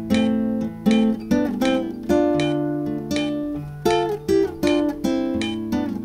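Classical guitar played fingerstyle at a slow practice tempo: plucked two-note chords of the melody, about two a second, ringing over held bass notes.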